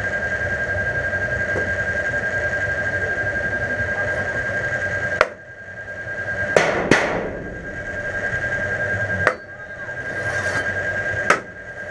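A steady hum with a constant high whine, broken by five sharp bangs, two of them in quick succession; the hum drops out briefly after each bang and swells back.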